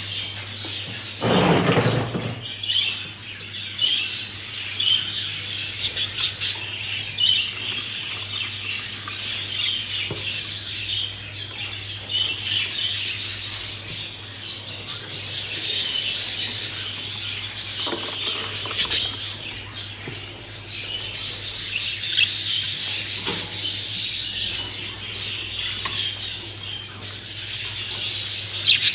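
Budgerigars chattering continuously with dense, high chirps and warbles. A short, loud noisy burst comes about a second in, over a steady low hum.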